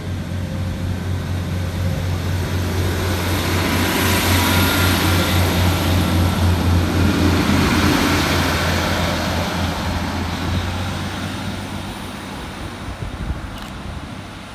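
Class 156 Sprinter diesel multiple unit pulling away under power, its Cummins diesel engines giving a low, throbbing drone with wheel-on-rail noise. It swells as the train passes close by, loudest about halfway through, then fades as it draws away.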